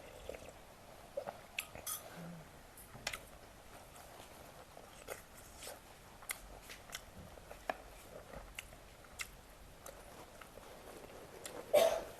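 A person eating: chewing and biting, with scattered crisp crunches and mouth clicks, and a louder crunch near the end.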